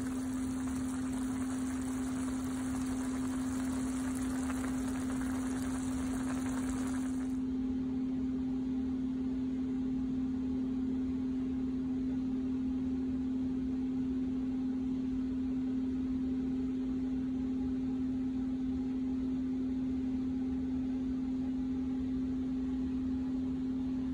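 A steady low-pitched hum with a hiss over it that cuts off suddenly about seven seconds in.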